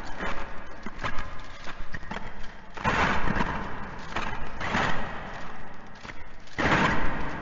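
Metal shackle chains clinking and rattling in repeated bursts, the loudest about three, five and seven seconds in.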